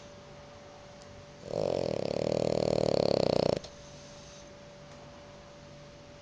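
French bulldog snoring in its sleep: one long, fluttering snore of about two seconds, starting about a second and a half in.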